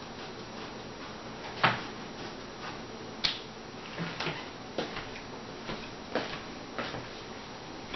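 Short, irregular scrapes and knocks from hands trimming and handling the foam padding on a cast-iron bathtub's rim. The loudest comes about a second and a half in.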